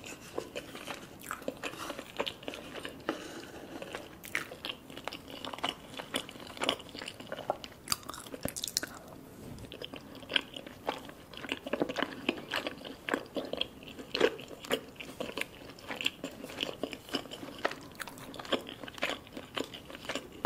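Close-miked eating sounds: wet chewing and lip smacking as curry sauce is eaten off a wooden spoon, in many quick, irregular clicks.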